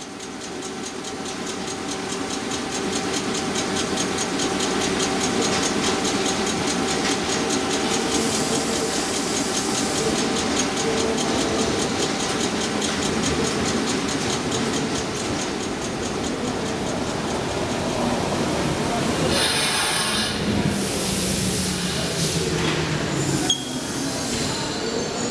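Circumvesuviana electric commuter trains in a station: a steady hum with a fast, even ticking, then, about twenty seconds in, a loud hiss and a slowly falling tone as a train moves.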